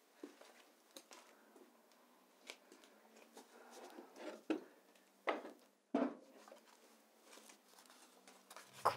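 Faint rustling and handling of cloth and objects in a small room, broken by a few soft knocks and clicks, the loudest three coming in the middle.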